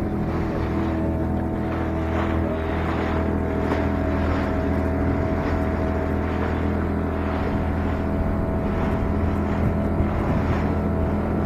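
Outboard motor running steadily at cruising speed, driving a small open boat, with water rushing along and slapping against the hull.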